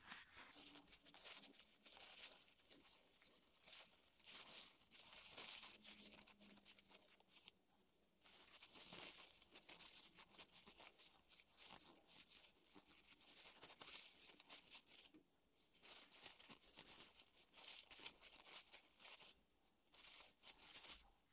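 Faint rustling and crinkling of a paper shop towel in short, irregular strokes as hands rub a rubber differential seal clean in it.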